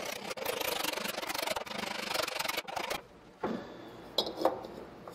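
Metal scraping and rubbing for about three seconds as a steel pulley hub and its bored-out bushing are worked onto a small diesel engine's output shaft. Then come a few light metal clunks as the belt pulley is set onto the hub.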